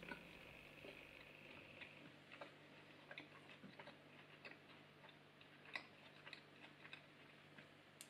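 Near silence: room tone with a faint low hum and scattered faint, irregular light clicks.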